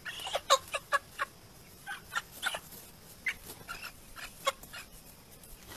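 Chicken giving a quick series of short, sharp squawks in three clusters: alarm calls while a puppy wrestles and grabs at it. The calls stop about a second before the end.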